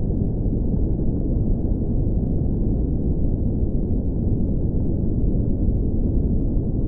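A steady low rumble of noise, with no pitch, rhythm or breaks.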